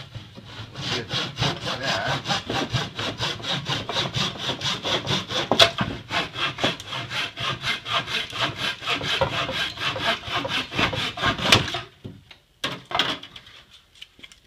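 A hand tool rasped quickly back and forth across a wooden 2x board, about five strokes a second, stopping short near the end, followed by a few light knocks. The strokes are cleaning up a rough, split bandsaw cut.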